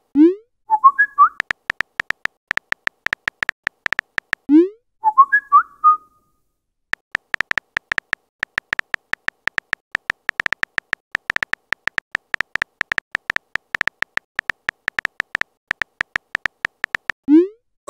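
Messenger-app sound effects. Twice, a short rising pop is followed by a brief whistle-like chirp as a message is sent. Between them come long runs of quick phone-keyboard clicks, several a second, as text is typed, and another rising pop comes near the end.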